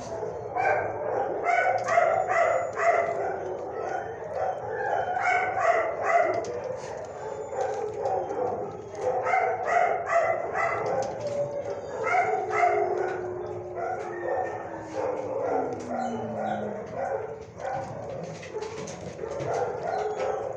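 Shelter kennel dogs barking in repeated runs of short barks. About two thirds of the way through, a long tone slides slowly downward under the barking.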